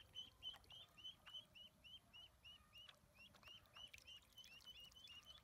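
Ducklings peeping: a quick, faint series of short high chirps, about four a second with a short pause about three seconds in, with faint splashing of water in the tub.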